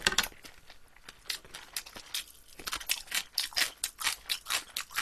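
Close-miked crunching as shell-on soy-marinated armored shrimp (ttak-saeu) are chewed: a run of irregular sharp crackles, sparse at first and denser after about a second.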